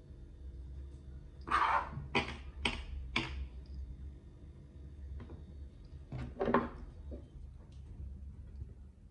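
A hand pressing and patting kinetic sand shaped over a mould: a quick run of four soft thumps with a rustle about a second and a half in, then one more a little past the middle, over a low steady hum.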